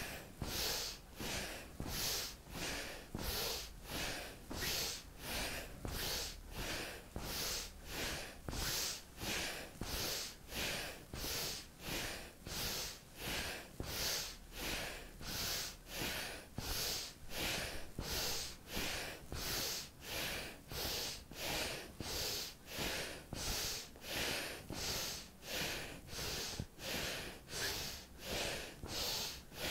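A woman breathing rapidly and forcefully through her nose in a steady rhythm, about one and a half hissing breaths a second, as a rapid-breath relaxation exercise.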